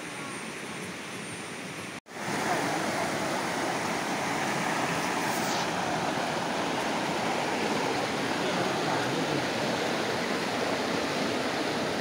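Shallow stream water running over rocks, at first quieter and further off, then close and louder after a cut about two seconds in.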